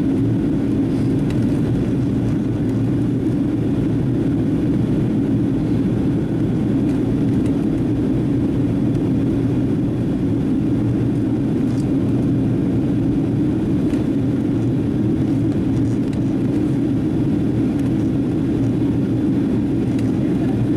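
Steady, loud cabin noise inside a Boeing 737-700 airliner in flight: engine and airflow drone, even in level throughout, as the jet descends towards landing.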